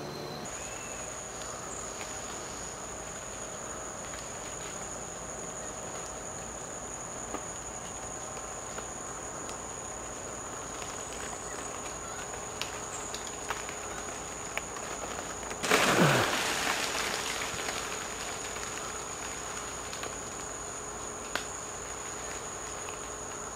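Steady high-pitched drone of insects in the forest canopy. About two-thirds of the way through comes one loud burst of noise that fades over a couple of seconds.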